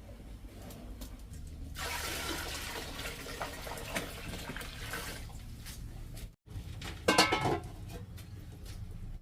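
Water pouring and splashing, with a louder burst of splashing about seven seconds in.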